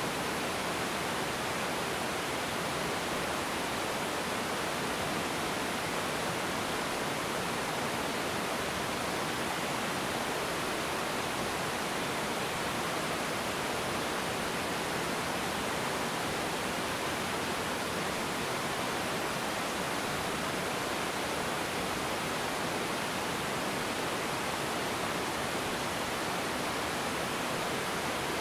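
River water pouring over a low rocky waterfall: a constant, even rushing with no breaks or changes.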